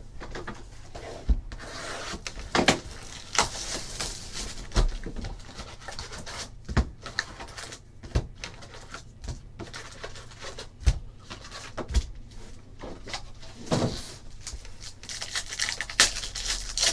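Handling of cardboard trading-card boxes and foil card packs: scattered knocks and taps on the table with bursts of foil wrapper crinkling, and a pack being torn open near the end.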